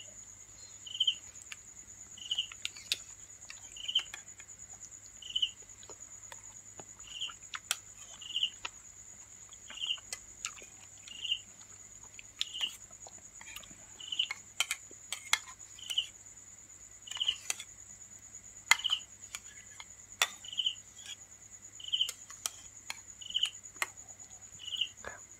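Crickets chirping at night in an uneven rhythm of about one short chirp a second, over a continuous high insect trill, with scattered sharp clicks of eating close to the microphone.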